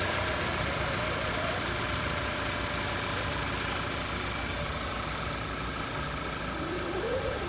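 2010 Audi A4's engine idling steadily, running on its newly fitted starter.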